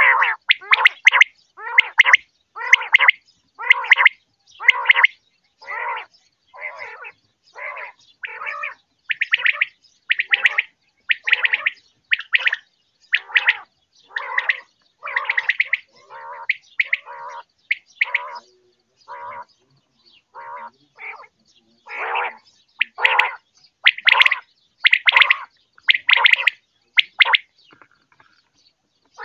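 Common quail calling over and over, a short rough call about once a second, broken only near the end.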